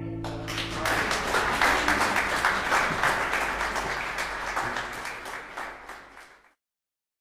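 Audience applauding as the last flute-and-guitar chord dies away in the first second; the clapping fades and cuts off suddenly about six and a half seconds in.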